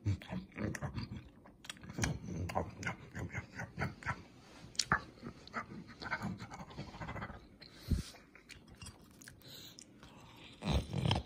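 Close-up chewing of a bread sub sandwich: an irregular run of short, wet mouth clicks and smacks, with a couple of louder low thumps near the end.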